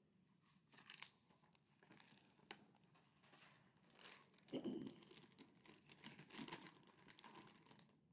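Faint rustling and crinkling handling noises as a hardcover picture book is moved and set down on a lap, with scattered small clicks and a soft thump about halfway through.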